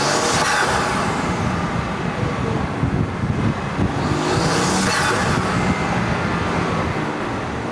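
BMW G87 M2's twin-turbocharged S58 straight-six running on the move with an aftermarket Ramair Pro-Ram cone-filter intake fitted. The engine note rises and falls, with swells about half a second and five seconds in.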